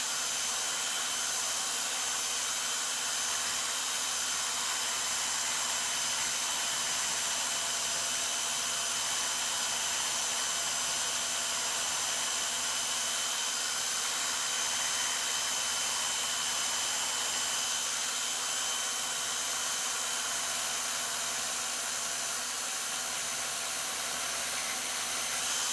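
An electric sander running at a steady speed: an even whirring hum with a few constant high tones, never changing in level or pitch.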